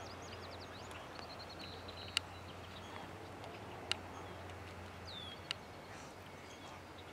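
Faint open-air ambience: small birds chirping with short gliding calls over a low steady hum. Three sharp ticks stand out, about two, four and five and a half seconds in.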